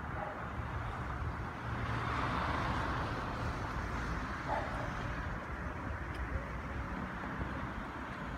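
Steady rumble of road traffic, swelling for a second or so about two seconds in.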